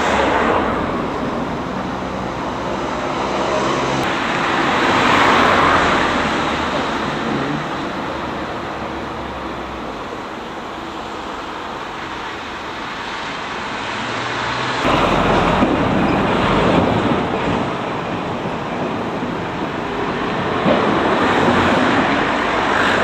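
Road traffic passing close by, with vehicles swelling up and fading away several times over a steady background of traffic noise.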